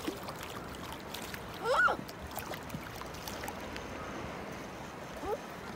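Small waves lapping and slapping against a concrete harbour quay, a steady wash with little clicks. About two seconds in comes a short, loud high call that rises and falls, and near the end a fainter rising one.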